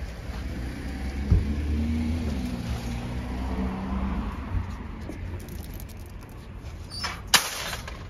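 A car engine running in the car park, a low hum whose pitch shifts slightly over a few seconds. A sharp knock comes about a second in, and two sharp clacks near the end are the loudest sounds.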